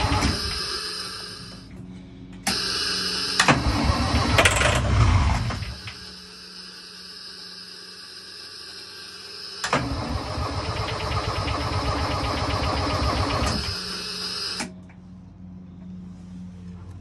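Commer TS3 three-cylinder two-stroke opposed-piston diesel turned over on the starter with ether starting fluid. It runs down just after the start. It then cranks again from a few seconds in, with a louder burst of firing around four to five seconds in, and cranks once more from about ten seconds in until it stops near fifteen seconds. It fires only on the starting fluid and will not keep running, because the injection pump is not delivering fuel to the injectors.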